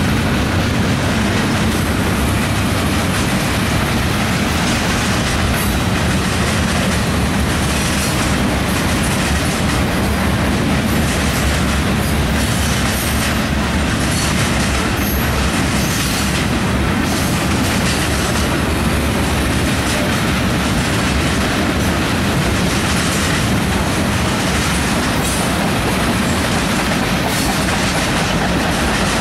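CSX freight cars rolling past at steady speed, a continuous rolling noise with the wheels clicking over rail joints.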